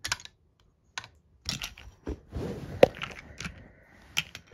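A series of sharp clicks and short rustling noises, about half a dozen at irregular intervals; the loudest click comes a little under three seconds in.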